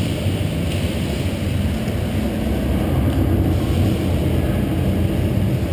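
Steady low rumbling background noise with no distinct shots or impacts.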